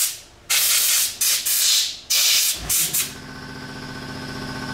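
Several short, loud hissing blasts of a compressed-air spray gun blowing cleaner through a dirt bike fork's base valve to clean it out. Near the end the blasts stop and a steady, even-pitched motor hum starts and slowly grows louder: the shop air compressor kicking on.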